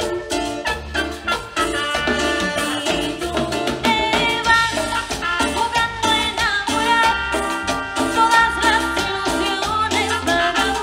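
Latin dance music from a band: a fast, steady percussion pattern over a pulsing bass, with held melody notes on top.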